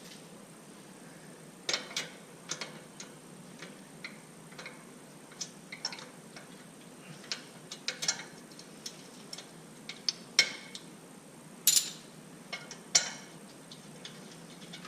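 Hand ratchet wrench clicking in short, irregular runs as a 14 mm transmission-mount bolt is backed out, with a few louder metallic knocks along the way.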